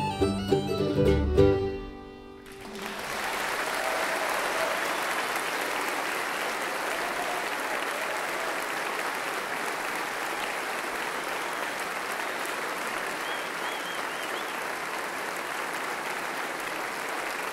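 A string band (guitar and fiddle) plays the last notes of a tune, which end about two seconds in; then an audience applauds steadily.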